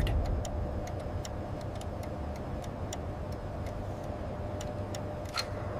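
Steady low industrial machine hum with a faint held tone, and faint ticking at about three or four ticks a second.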